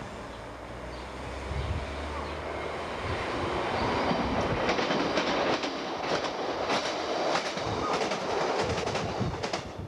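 Passenger train approaching and passing close by at speed: a low hum at first, then a loud rushing rail noise with repeated sharp clicks of the wheels over the rail joints from about halfway through, fading just at the end.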